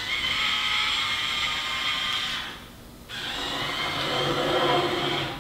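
Meccano Meccanoid robot's small electric motors whirring as it moves its arms and body, in two runs of two to three seconds each with a short pause between.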